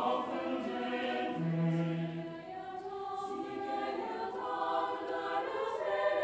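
Choir singing a slow piece in long, held chords.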